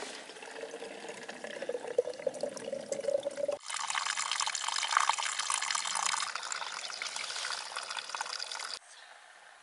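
Spring water running from a hose into a bottle, with a tone that rises slightly as the bottle fills. About three and a half seconds in it changes abruptly to louder, hissier water pouring from the hose and splashing onto rocks, which drops away near the end.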